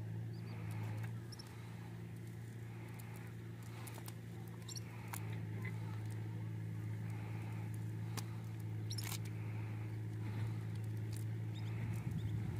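A motor running with a steady low hum, with scattered sharp clicks over it.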